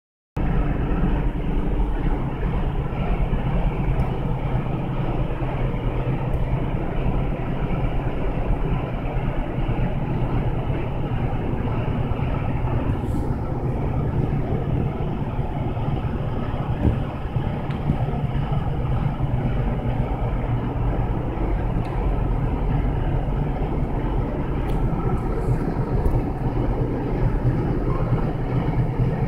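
Steady drone of commercial kitchen machinery, ventilation fans and refrigeration running together as a constant rushing hum with a deep low end.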